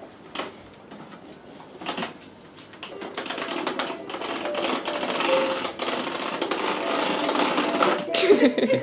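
Plastic push-along baby walker rattling and clattering as its wheels roll over a wooden floor. It gets louder and busier from about three seconds in.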